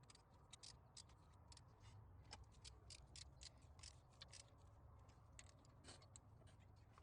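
Near silence with many faint, irregular small clicks and ticks over a low hum.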